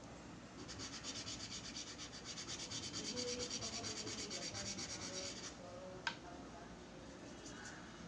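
Charcoal being rubbed into drawing paper in quick rhythmic strokes, several a second, building up dark shading. The strokes stop after about five seconds, and a single sharp tap follows a little after six seconds.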